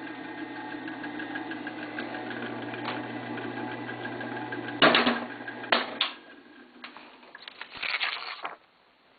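AB Dick Model 217G spirit duplicator running with a steady hum and fast rhythmic clicking. About five to six seconds in come a few loud clacks and the hum stops, followed by some further clattering before the machine goes still.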